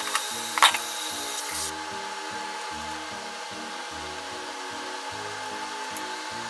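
Soft background music over a steady mechanical whir with a fixed hum in it. About half a second in, a plastic container lid clacks, and there is a small tick near the end.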